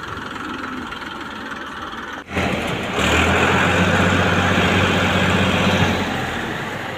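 Massey Ferguson tractor's diesel engine running under load as it pulls a heavily loaded straw trailer. The engine gets much louder about three seconds in as the tractor passes close by, then eases off near the end.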